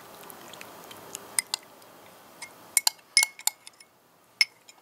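Metal spoon clinking and scraping against a glass measuring cup as the last of a honey and orange-juice mix is spooned out: a handful of sharp, ringing clinks, most of them bunched together about three seconds in, with one more near the end.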